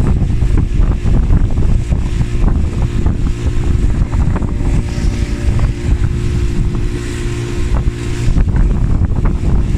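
Wind buffeting the microphone, with the steady drone of a motor underneath.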